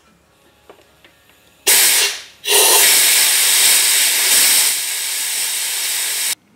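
Compressed-air blow gun blasting leftover metal chips out of a freshly tapped bar stud hole in a chainsaw crankcase: a short blast about two seconds in, then a longer steady blast that eases a little before cutting off sharply near the end.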